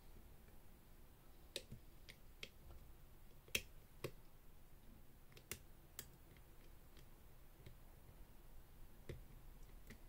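Faint, scattered metallic clicks, about eight of them at uneven intervals, from a hook pick working the levers of a Walsall Ace 7-lever safe lock held under a tensioning wire. The sharpest click comes about three and a half seconds in.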